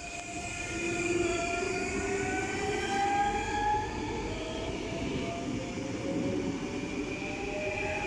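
Double-deck Regio 2N electric train running past on the rails. Its traction motors give a whine of several tones that rise slowly in pitch as the train picks up speed, over a low rumble of wheels on track.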